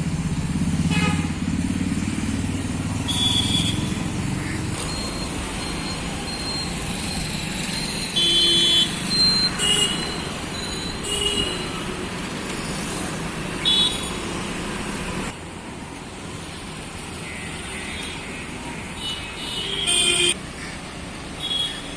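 Road traffic with vehicle horns honking in many short toots over a steady engine and road rumble.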